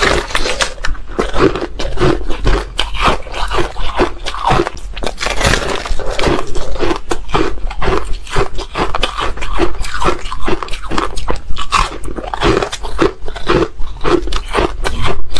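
Close-miked biting and chewing of a porous slab of soft, crunchy ice: a dense, unbroken run of rapid crunches.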